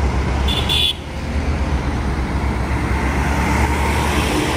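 Road traffic passing at a highway tunnel's mouth, with the tunnel's large jet ventilation fans running, making a steady low rumble. A truck goes by close near the end. A brief high-pitched toot sounds about half a second in.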